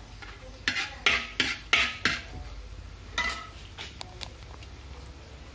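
A spoon scraping and knocking against a cooking pan while onions and masala are stirred and sautéed: about five quick strokes in a row, one more a second later, then a few light taps.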